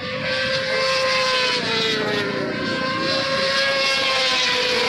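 Racing motorcycles running at high revs past the grandstand: a loud, steady high engine note that dips a little midway and falls away near the end.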